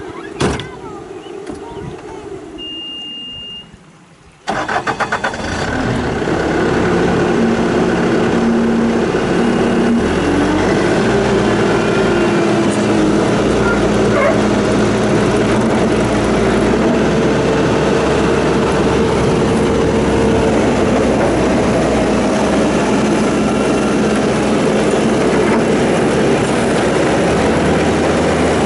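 Bobcat T770 skid steer's diesel engine running at high throttle, driving a hydraulic rotary brush cutter with its blades spinning. The sound begins suddenly about four and a half seconds in, after a quieter stretch, and then stays loud and steady.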